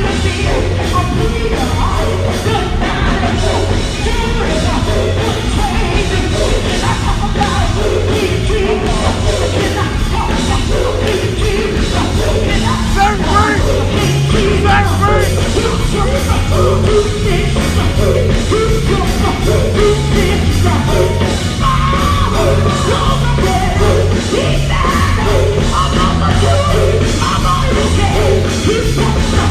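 Live gospel music: a band with strong bass and drums plays under several voices singing and shouting.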